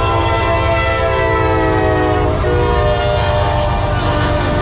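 Norfolk Southern freight locomotive's air horn sounding one long, loud chord that drops a little in pitch about two and a half seconds in as the locomotive passes, over the steady rumble of the diesel locomotives. The horn stops near the end.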